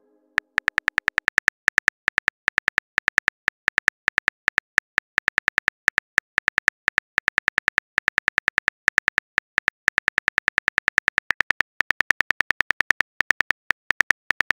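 Smartphone keyboard typing clicks: fast, even taps, several a second, in runs broken by short pauses, as a text message is typed out.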